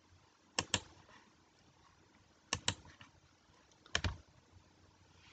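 Computer mouse clicks: three quick pairs of sharp clicks, each pair a press and release, a second and a half to two seconds apart, over faint room hiss.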